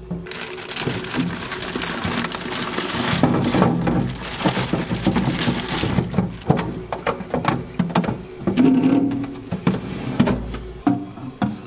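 Plastic produce bag crinkling and rustling as it is handled and opened, then cherry tomatoes dropping and knocking into a plastic fridge crisper drawer in a run of light taps and clicks.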